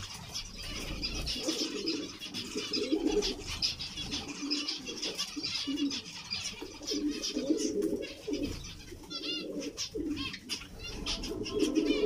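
A flock of zebra finches chattering with short, high chirps, with a run of quick chirps about nine seconds in. Under it, a low cooing call repeats throughout.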